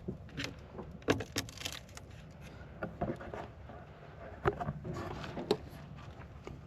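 Scattered light clicks and knocks of hands working on a truck's side mirror assembly, a few sharper taps about a second in and again around four and a half to five and a half seconds in.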